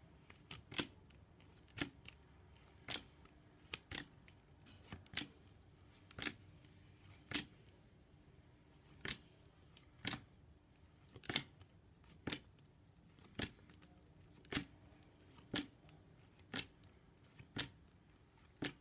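Flashcards flipped one after another, a short sharp card snap about once a second.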